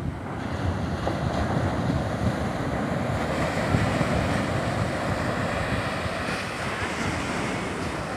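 Sea surf breaking and washing up a sandy beach: a steady rush of foam, with a wave's wash swelling a few seconds in and slowly easing off.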